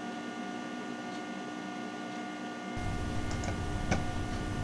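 Steady electrical hum of a running Macintosh SE setup, several fixed tones over a low hiss. A few light clicks come in the last second and a half, the one about four seconds in the loudest, as SuperPaint is launched.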